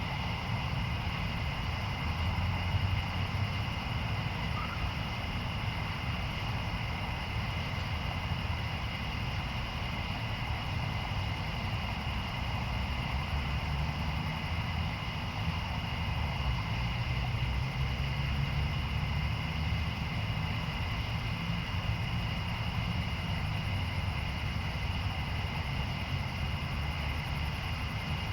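Outdoor ambience during a thunderstorm: a continuous low rumble that swells gently a few times, with steady high-pitched tones held above it.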